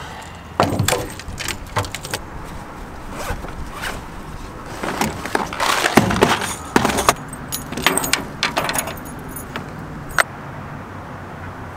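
Fishing tackle being handled: a plastic tackle box and hooked lures clicking, knocking and jingling against each other and the tailgate in an uneven run, busiest a little past the middle.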